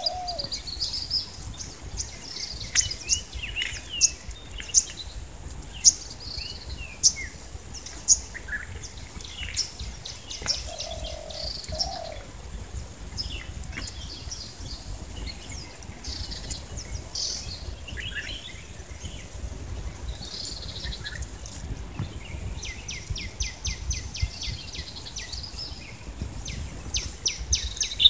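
Wild birds chirping and calling around a rural pond: many short, high chirps and sharp calls, with a lower two-note call about ten seconds in and a fast rattling run of chirps near the end.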